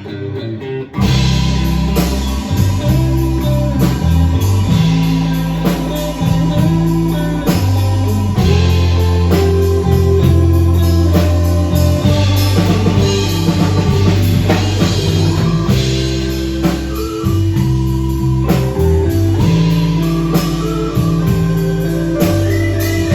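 Live band music: an instrumental passage with guitar and drums and no singing. The low end drops out briefly at the start, then the full band comes back in about a second in.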